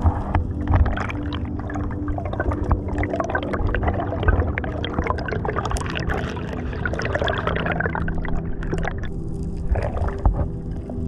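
Water sloshing and bubbling with irregular clicks, over background music of soft sustained tones.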